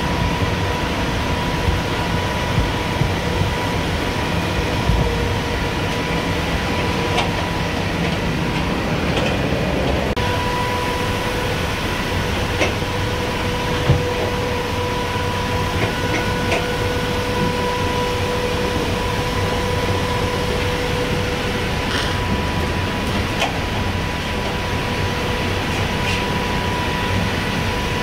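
Ventilation fans in a livestock truck running steadily, a constant drone with a steady whine and low rumble, broken by a few light knocks, the sharpest about halfway through.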